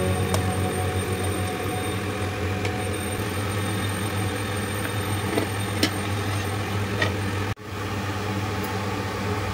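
A steady low mechanical hum, like a small motor or fan running, with a few light clicks over it. The sound cuts out for an instant about two-thirds of the way through.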